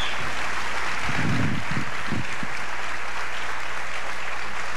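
Audience applauding steadily after a speech, with a few short low thumps about one to two and a half seconds in.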